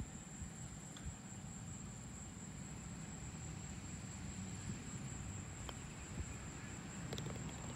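A putter strikes a golf ball with a faint click, and about a second and a half later the ball drops into the cup with a sharper clack: a holed putt. Underneath are a low background rumble and a steady high whine.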